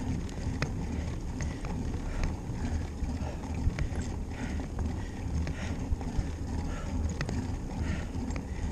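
Bicycle riding along a trail: a steady low rumble from the tyres and wind on the microphone, with scattered clicks and rattles from the bike.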